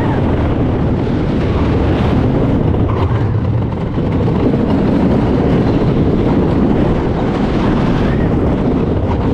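Wodan wooden roller coaster train running at speed on its wooden track: a loud, steady rumble of the wheels, with wind on the microphone. The rumble dips briefly about four seconds in, as the train crests a high point.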